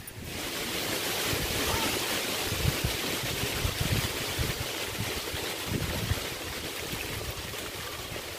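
Steady rushing hiss of wind with irregular low gusts buffeting the microphone, and a faint rustle of dry sticks and leaves as firewood is pulled from a brush pile.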